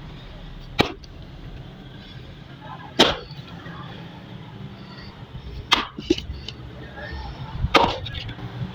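Axe chopping wood: four sharp blows about two seconds apart, with a lighter knock just after the third.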